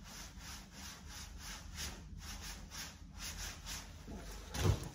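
Pleather (faux-leather) jeans rubbed against themselves by hand, a rhythmic swishing rub about four strokes a second. It is the noise the fabric makes when walking in them. A short louder sound comes near the end.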